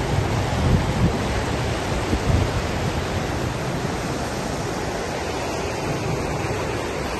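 Muddy floodwater rushing across a street in a fast torrent, a steady rushing of water.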